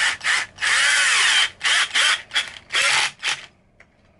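A MIKASO 12 V cordless drill driver driving a one-inch screw into hardwood, run in a series of short trigger bursts with one longer run about a second in, its motor pitch sagging under load and picking up again. The motor stops shortly before the end.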